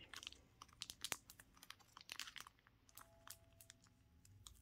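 Faint, scattered small clicks and crinkles of gloved hands fiddling with card mail packaging.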